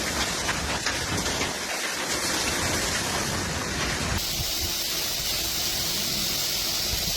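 Heavy rain pouring down, a steady rushing hiss. About four seconds in it switches abruptly to a thinner, hissier rain sound.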